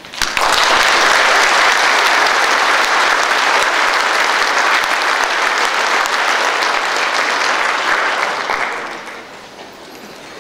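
Large audience applauding, starting abruptly and dying away about nine seconds in.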